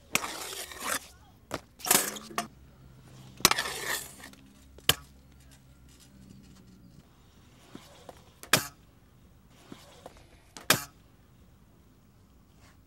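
Hard wheels rolling and scraping on concrete, with several sharp clacks of a stunt scooter and a skateboard landing and striking the ground. The loudest clack comes about three and a half seconds in.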